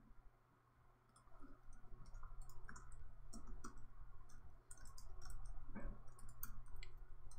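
Typing on a computer keyboard: a quick, irregular run of key clicks that starts about a second in.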